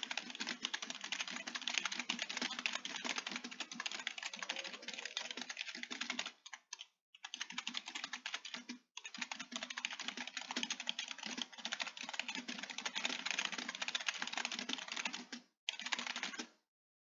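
Computer keyboard typed on rapidly and continuously, a fast stream of key clicks. It pauses briefly about six, nine and fifteen seconds in, then stops shortly before the end.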